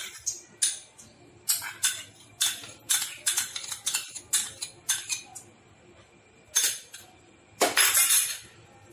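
Metal spoon knocking and clinking against a bowl and the kadai as ghee is spooned in: a quick run of light knocks for about five seconds, one more after a pause, then a longer scrape near the end.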